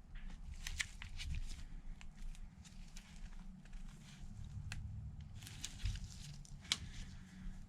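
Small clicks, taps and scraping of phone parts being handled as a Samsung Galaxy Note 5's frame is worked into its new screen assembly, over a steady low hum. The sharpest click comes near the end.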